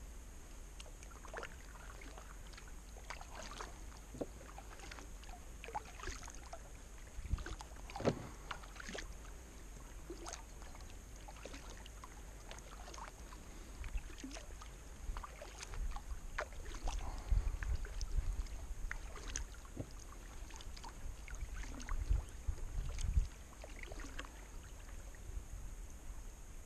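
Kayak paddling: the paddle blades dipping and splashing into the water at an irregular pace, with drips, and low thumps in the second half.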